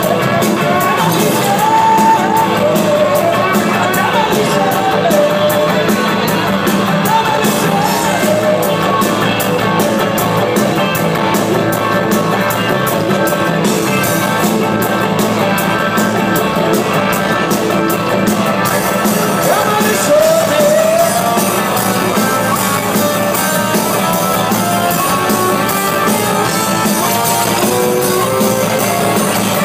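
Live band playing, with a woman singing over it, heard from within the audience in a large hall. The drums keep a steady beat whose sharp fast ticking drops out about two-thirds of the way through.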